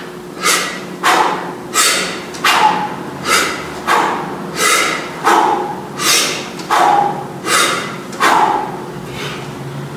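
A man's sharp, forceful exhales, one on each single-arm kettlebell swing, in a steady rhythm of about three every two seconds; they stop shortly before the end.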